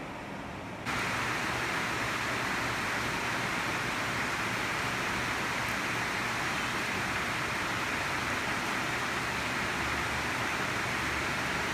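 Steady hiss of rain, which jumps up in level about a second in and then holds even.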